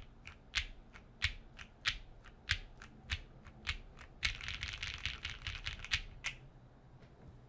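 Keystrokes on a GrayStudio Think 6.5 v2 mechanical keyboard with lubed KTT Rose linear switches and an FR4 plate: single presses about every 0.6 seconds, then a flurry of rapid typing lasting about a second and a half, two more presses, and a pause near the end.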